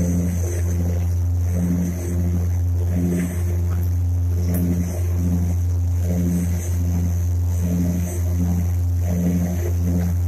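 Aircraft engines droning steadily, heard inside the cockpit, with a throbbing beat that pulses a little under twice a second.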